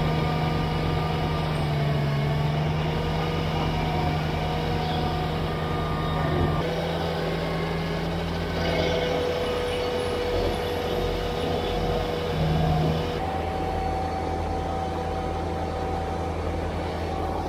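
Kubota BX23S compact tractor's three-cylinder diesel engine and front-mounted snowblower running steadily as it clears heavy wet snow. The hum changes slightly in tone about two-thirds of the way through.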